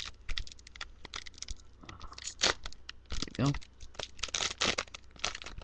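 Foil wrapper of a trading-card booster pack being crinkled and torn open by hand, a series of irregular crackles and rips.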